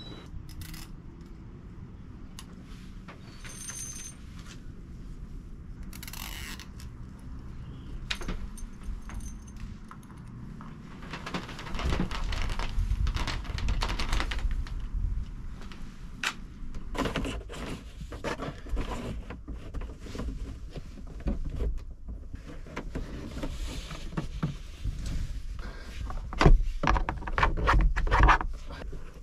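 Scattered clicks, scrapes and rattles of hands working a coax cable along a car's roof rack and pushing it under plastic interior trim.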